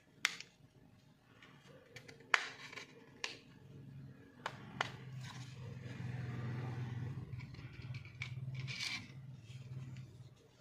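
Sharp plastic clicks and snaps as the Nokia 110's front housing is pried off its clips, four of them in the first five seconds, with a scraping rustle of handling. A steady low hum runs from about four seconds to near the end.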